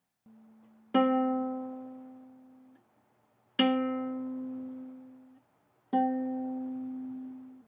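Ukulele string plucked three times on the same note, about two and a half seconds apart, each note ringing out and fading away.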